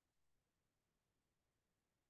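Near silence: the sound track is all but blank.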